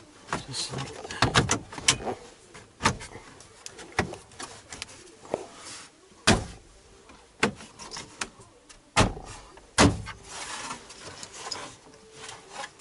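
Plastic dash bezel of a Dodge Ram pickup being pushed and pressed into its clips: a series of separate sharp knocks and clicks, the loudest about six and ten seconds in.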